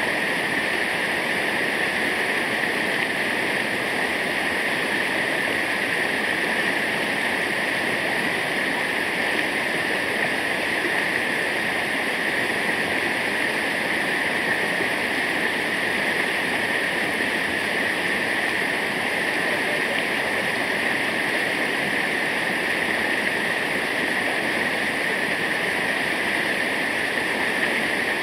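Waterfall, water falling and rushing with a steady, unchanging noise.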